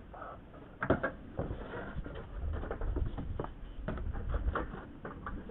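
Irregular light knocks, clicks and rustles of parts being handled, the sharpest knock a little under a second in, over a low rumble.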